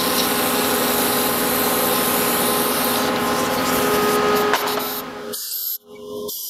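Steady loud hiss of brake-cleaner aerosol and a compressed-air blow gun spraying over a freshly polished crankshaft to wash it down and blow it dry. The hiss cuts off a little after five seconds in.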